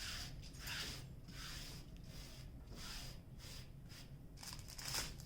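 Soft rustling of small plastic bags of diamond-painting drills being handled, in a series of faint swishes.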